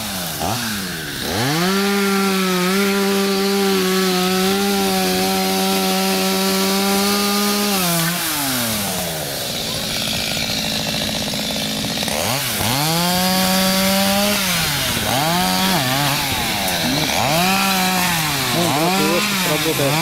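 Two-stroke chainsaw revved up about a second in and held at a steady high pitch for several seconds while cutting into maple, then dropped back to idle; after a few seconds it is revved again in a run of short rising and falling bursts.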